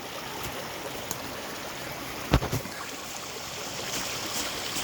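Small mountain stream flowing steadily over rocks. About halfway through comes one sharp thump followed quickly by two smaller knocks.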